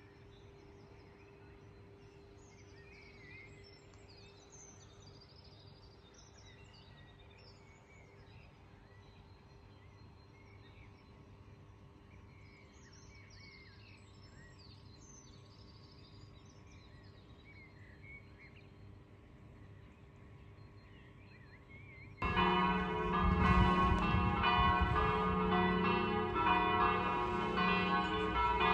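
Quiet outdoor ambience with scattered small-bird chirps and a faint steady hum; about three-quarters of the way through, church bells break in loudly and keep ringing in a dense peal.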